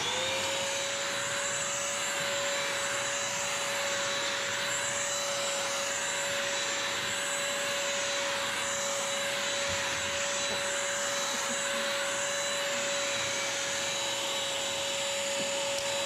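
BISSELL Crosswave wet/dry vacuum-mop running on an area rug. Its motor spins up at switch-on, then holds a steady whine under a rush of suction and brush-roll noise as it is pushed over the rug.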